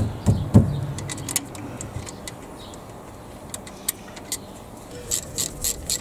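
Metal knocks and clinks of a car's front brake caliper and pads being handled and refitted by hand: a few heavy knocks in the first second, scattered light clicks, then an even run of sharp metallic clicks about four a second near the end.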